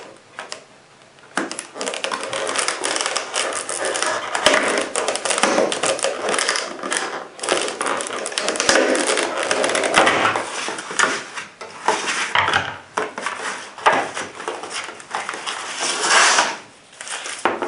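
Clear plastic clamshell blister packaging crackling and popping as it is prised open and handled, with many irregular clicks and crinkles, starting about a second and a half in.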